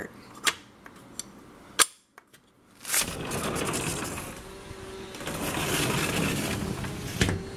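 A few sharp clicks and knocks. About three seconds in, a steady rushing noise of wind on the microphone sets in.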